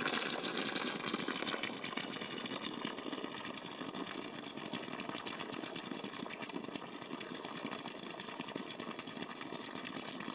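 A thin stream of water from a stone fountain's spout splashing steadily onto the stone below, a little louder in the first two seconds.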